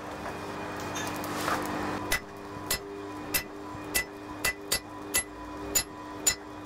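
Hand hammer striking a top tool held on red-hot steel over an anvil, about ten blows at roughly two a second starting about two seconds in, each with a short metallic ring, over a steady low hum. The blows are driving the shoulder slot into the crossguard bar.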